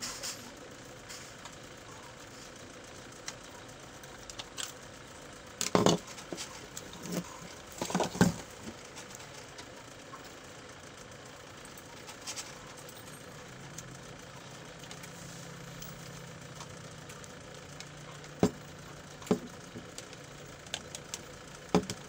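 Quiet workroom background with a faint steady hum, broken by scattered knocks and clicks, the loudest a cluster about six to eight seconds in and a few sharp ones near the end. A low rumble comes in for a few seconds in the middle.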